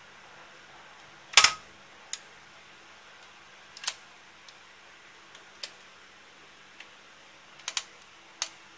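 Hands working the plastic cam-door lid and pattern dial of a vintage Janome 672 sewing machine: a handful of sharp, irregularly spaced clicks and taps. The loudest comes about a second and a half in.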